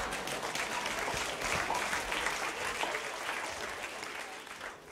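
Theatre audience applauding, fading away near the end.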